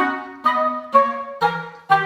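Instrumental music: a melody of pitched notes, about two a second, each starting sharply and fading away before the next.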